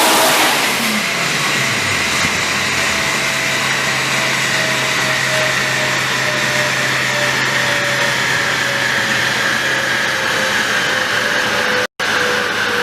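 Turbocharged VW Golf Mk2 engine coming off high revs, its pitch dropping sharply in the first two seconds, then running steadily at lower revs with a faint whine that slowly falls in pitch. The sound cuts out for an instant near the end.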